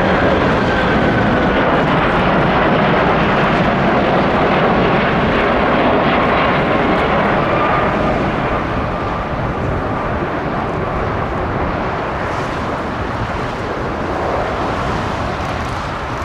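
Boeing 747 freighter's four jet engines on landing approach: a steady jet rumble with a faint whine that slides slowly down in pitch, the whole sound easing off gradually from about halfway through.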